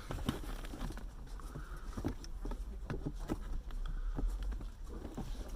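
Irregular light clicks and knocks of hand tools working on a car seat's metal fittings.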